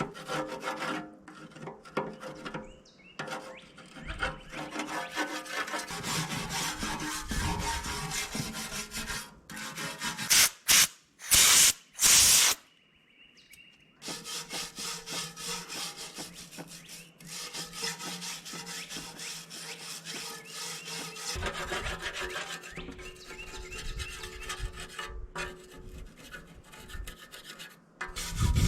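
Rapid, repeated hand scraping of thick old grime off a steel hydraulic tank. Three short, much louder rushing bursts come about ten to twelve seconds in, followed by a brief quiet pause before the scraping resumes.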